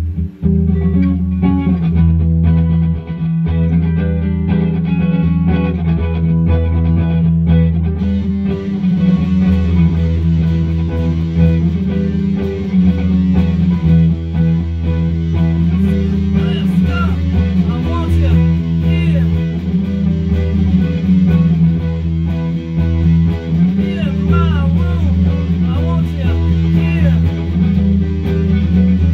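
Electric guitar playing a repeating low rock riff layered with a loop pedal. About eight seconds in a brighter, higher guitar part joins over the loop, with bent notes later on.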